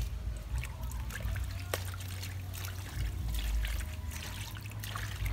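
Water trickling and splashing in a stainless-steel basin as hands rub and swish through it, with small scattered clicks and one sharper click a little under two seconds in.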